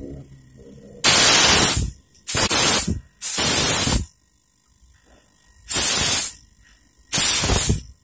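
Compressed air hissing out of a homemade refrigerator-compressor air tank in five short bursts, as the valve at the pressure-switch fitting is opened and shut by hand.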